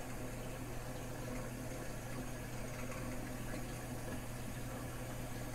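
Steady low hum under a faint, even hiss, with no distinct events.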